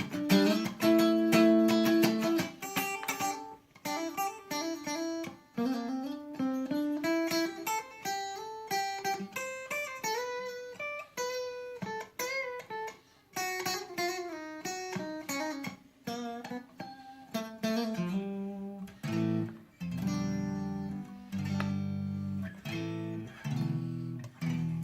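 Squier Stratocaster electric guitar played with its five-way pickup switch in the second position (neck and middle pickups together). It opens with chords, moves to single-note melodic runs, and goes back to chords about three-quarters of the way through.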